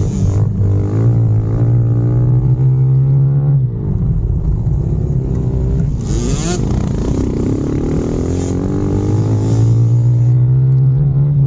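Honda CRF110F pit bike's single-cylinder four-stroke engine running hard under the rider. Its pitch dips about four seconds in, climbs and wavers through the middle, and holds steady near the end, with a couple of brief bursts of hiss.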